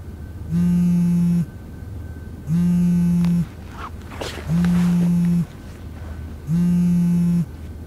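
iPhone vibrating with an incoming call: four buzzes of about a second each, two seconds apart. A brief stir of movement falls between the second and third buzz.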